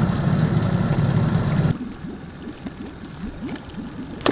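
An engine idling with a fast, even low pulse, which cuts off abruptly a little under two seconds in. A quieter, wavering low sound and one short click follow.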